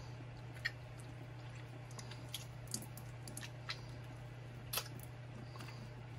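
Faint wet squelches and a few small clicks as raw squid are handled and turned inside out by hand, over a steady low hum.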